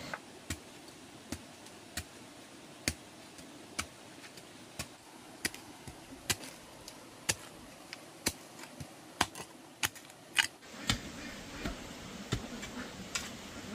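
A series of sharp taps or knocks, about one a second, coming quicker and louder toward the end, with the loudest about ten seconds in.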